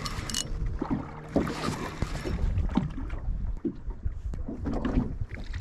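Water lapping against a small boat's hull and wind on the microphone, while a fishing reel is wound in against a hooked fish.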